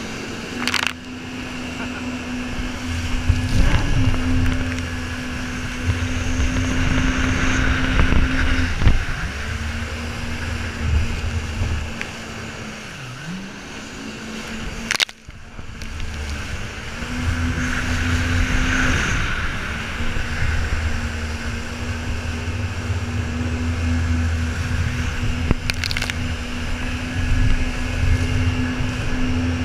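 Jet ski engine running at speed over a steady rush of water spray. The engine note drops about 13 seconds in as the throttle eases, then climbs back up. A few sharp knocks are heard, near the start, the middle and near the end.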